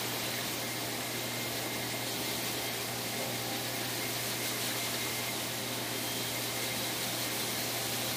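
Pet grooming hose dryer blowing air steadily through its long ribbed hose and brush nozzle while blow-drying a dog's coat: a constant rush of air with a steady low hum under it.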